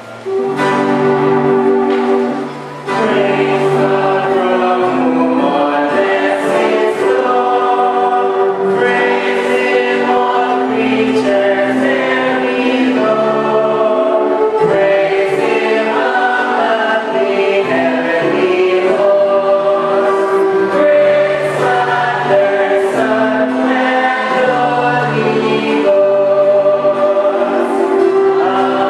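A group of voices singing a slow hymn together in harmony, holding long notes and chords, with a short break about two and a half seconds in.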